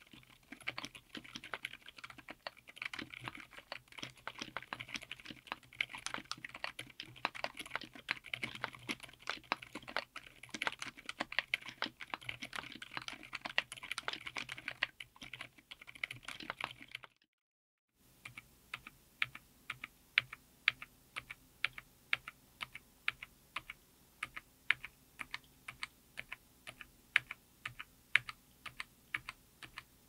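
Mechanical keyboard with Outemu Silent Yellow Jade silent tactile switches, MT3-profile PBT keycaps, an FR4 plate and an aluminum case. First comes fast continuous typing; then, after a brief break a little past halfway, single keys are pressed one at a time at an even pace of about two or three a second.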